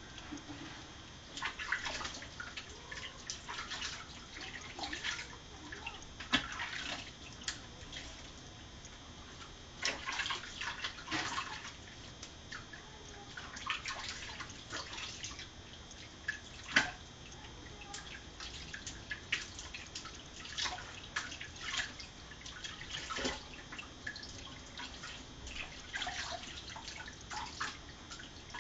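Water splashing and dripping in a stainless steel kitchen sink as a small wet pet is washed by hand, in irregular short splashes.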